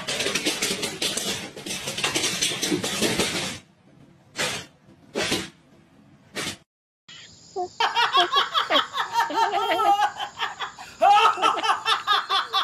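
Two dogs play-fighting with rough, noisy snarling, then three short barks. After a break, a woman laughs hard in quick, pulsing bursts.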